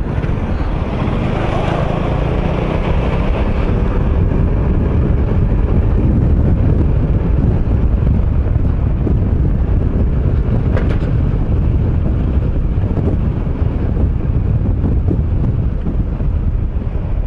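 A motorcycle ridden at a steady speed: wind rushing over the microphone over the low rumble of the engine.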